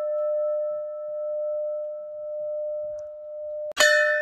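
Large brass temple bell ringing on after a strike, its tone wavering as it slowly fades. Near the end it is struck again with a bright clang that rings on.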